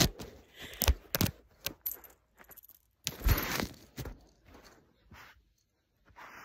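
A kitten nosing and pawing at a phone lying on the floor, knocking against the phone close to its microphone: a quick string of sharp taps and knocks, then a longer rubbing scrape about three seconds in, and a few fainter taps.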